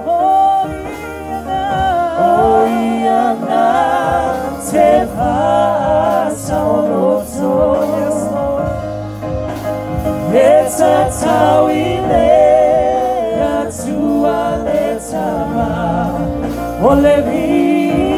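A woman singing a gospel worship song into a handheld microphone, holding long notes with vibrato.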